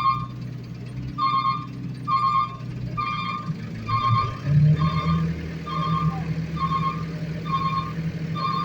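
A heavy vehicle's reversing alarm beeping steadily, about one beep a second, over a diesel engine running; the engine note rises and gets stronger about halfway through as it is put under more load.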